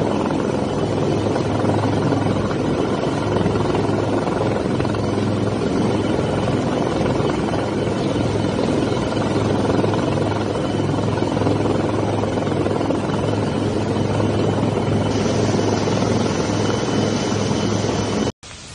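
Helicopter hovering low: steady, loud rotor and engine noise with a low thrum. It cuts off suddenly near the end.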